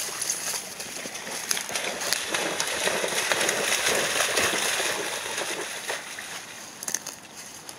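Golden retrievers running and splashing through a shallow creek, the splashing swelling to its loudest about midway and then fading.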